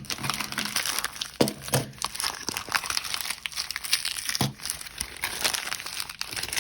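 Continuous crinkling and rustling of packaging being handled, with a few soft knocks.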